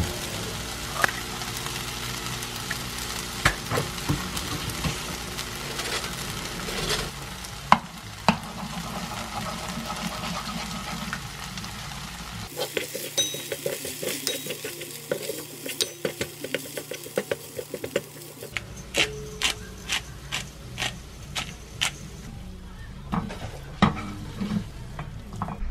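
Konjac rice and green onion sizzling in a coated frying pan while a wooden spatula stirs and scrapes it, with scattered knocks against the pan. About halfway through comes a spell of quick, even tapping as egg is stirred into the rice, then spaced sharp knocks of the spatula.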